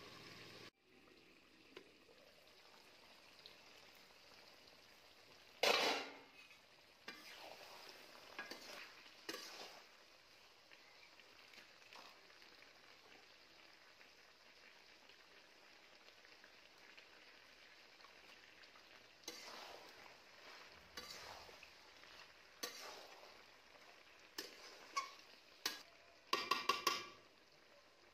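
Chicken and potato curry sizzling in an aluminium kadai, with a metal spatula scraping and clattering against the pan now and then as it is stirred. The loudest scrape comes about six seconds in, and a quick run of clinks near the end.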